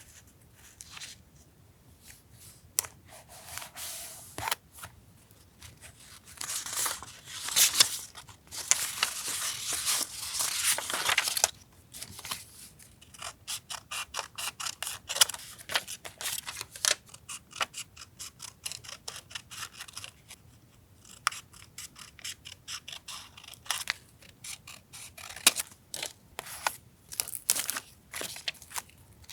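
Journal collage materials being handled: paper rustling and sliding for a few seconds, then long runs of small, quick clicks and ticks.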